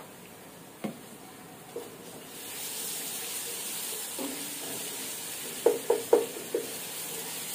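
Ginger-garlic paste sizzling in hot oil with frying onions as it is stirred in with a wooden spatula. The sizzle comes up about two seconds in, and the spatula knocks against the pot four times in quick succession near the end.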